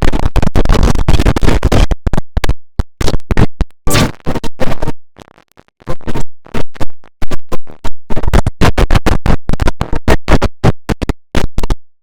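The IBM OS/2 Warp 3 shutdown sound chopped by audio effects into rapid stuttering fragments that cut in and out many times a second, with a short silent break about five seconds in.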